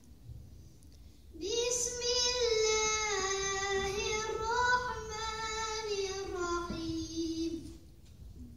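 A child's solo voice chanting one long melodic phrase, with held notes that slide and turn between pitches. It starts about a second and a half in and breaks off near the end.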